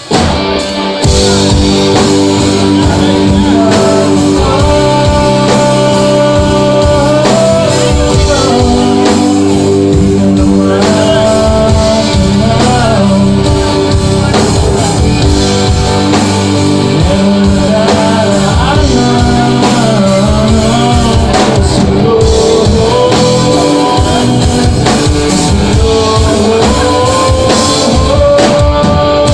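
Live rock band playing loud, with drums, electric bass and acoustic and electric guitars under a sung vocal; the full band comes in abruptly at the start.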